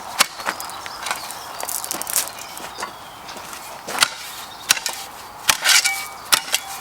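Hands pulling a small piece off an alpine plant and working in gravelly soil: a scatter of sharp clicks and snaps, with a short scraping rustle near the end.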